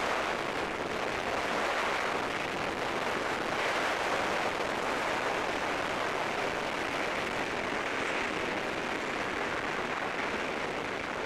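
Steady rush of wind and engine noise at the open door of a small high-wing plane in flight, blowing across the camcorder microphone.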